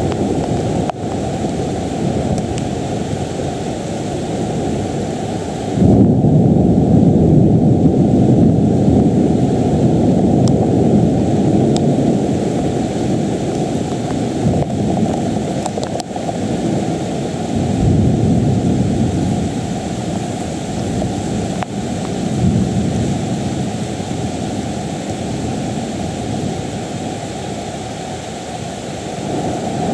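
Thunder rumbling in long rolls over a steady wash of rain. The loudest roll breaks in suddenly about six seconds in and dies away over several seconds, and further, weaker rolls swell up near the middle and a little later.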